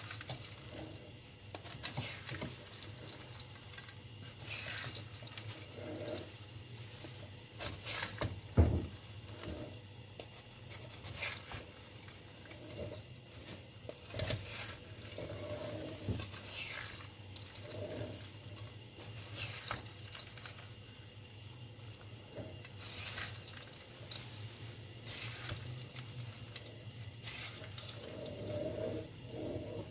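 Wooden spatula stirring dry, sugar-coated peanuts in a metal pan: irregular strokes of the nuts rattling and scraping against the pan, with one sharp knock about eight and a half seconds in. The sugar has crystallised onto the peanuts, so the stirring sounds dry rather than sizzling.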